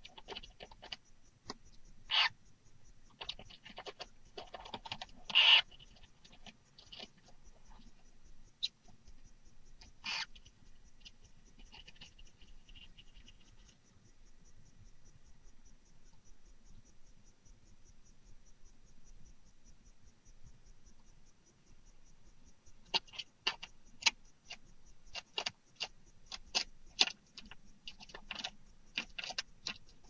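Barn owl nest box: scattered short scratchy calls and clicks as the brooding adult barn owl shifts over the eggs and the newly hatched owlet, loudest about five seconds in. A quiet spell comes in the middle, then a run of quick clicks and scratches near the end.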